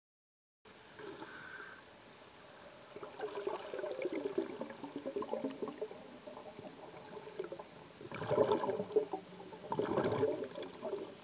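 Muffled water sloshing and gurgling around a camera held underwater, starting suddenly under a second in and swelling louder around eight and ten seconds in.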